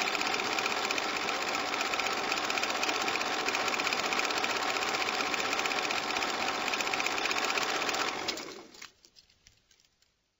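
Film projector running: a rapid, steady mechanical clatter that winds down about eight seconds in, trailing off in a few last clicks before stopping.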